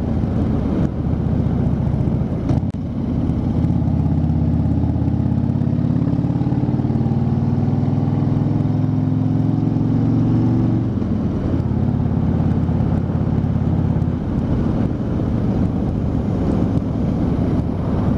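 Harley-Davidson motorcycle's V-twin engine running steadily while the bike is ridden. The engine note changes briefly about eleven seconds in, and again around fourteen seconds in.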